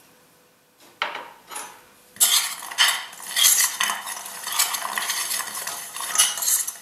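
Metal spoon stirring frozen raspberries and pectin powder in a stainless steel saucepan: irregular scraping and clinking against the pan. It starts in earnest about two seconds in, after a couple of short knocks.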